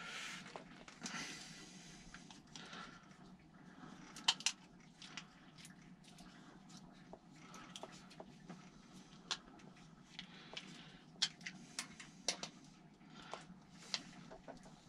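Faint, scattered clicks and small metallic taps of a bolt and pannier-rack parts being handled and threaded by hand into a bicycle frame.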